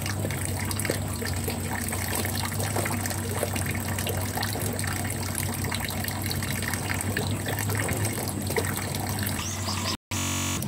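Steady outdoor background noise: an even rushing hiss like running or trickling water, over a low steady hum.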